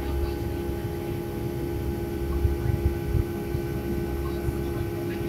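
Steady jet airliner cabin noise during the climb after takeoff: the turbofan engines' constant drone with a low rumble and a steady hum, heard from inside the cabin.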